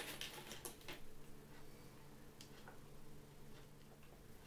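A few faint clicks of small screws being picked out of a plastic tub and handled, most of them in the first second, then sparse light ticks over a low steady hum.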